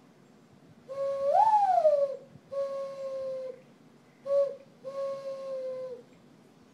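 A person's whistled imitation of a mourning dove's coo. It opens with a long note that rises in pitch and falls back, followed by three level coos, the middle one short, with a breathy hiss over them.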